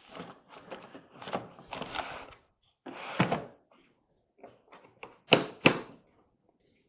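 Mechanics tool set case being handled and shut: tools and drawers clattering and knocking, then two sharp, loud clunks about five and a half seconds in.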